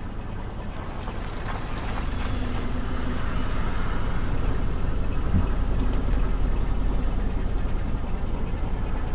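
Car engine running low and steady, growing louder over the first few seconds and then holding, with a few faint cracks about one to two seconds in.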